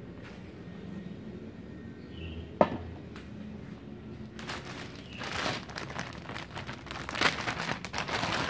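A single sharp knock about two and a half seconds in. Then, from about halfway, a clear plastic bag crinkles and rustles as a MIG welding torch and its cable are unwrapped, growing louder near the end.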